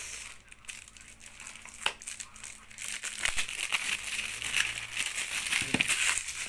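Packaging crinkling and rustling with small crackles as a parcel is handled, busiest in the second half as a security-seal mailer envelope is laid down and handled.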